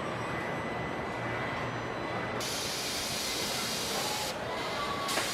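Steady truck-assembly-plant machinery noise. About halfway through, a loud hiss starts suddenly and runs for about two seconds, breaks off, then starts again just before the end with a sharp click.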